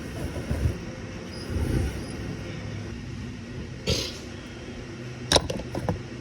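Scattered knocks and clicks of tools and engine parts being handled on a workbench over a low steady hum, with a short sharp clack about five seconds in.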